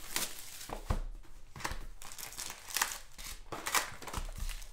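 Plastic wrapping and foil trading-card packs crinkling and rustling in hands as a box of basketball cards is opened and its packs pulled out, in a run of short bursts.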